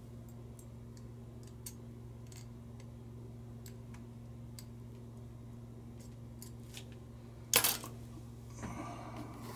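Small metallic clicks and taps from handling lighter parts and tools, with one sharp clack about seven and a half seconds in and a brief rattle just after. A steady low hum runs underneath.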